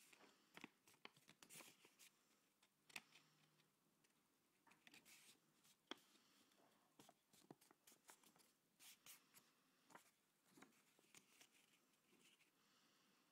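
Faint rustling and crinkling of a paper strip as it is folded back and forth into a small square, with many soft, irregular clicks as the creases are pressed.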